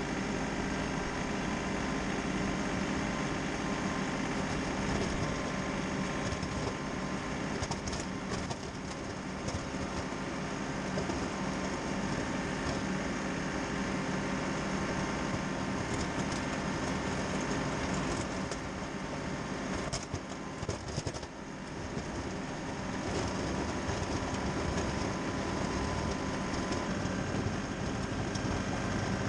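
An engine running steadily, with a brief drop in level about two-thirds of the way through.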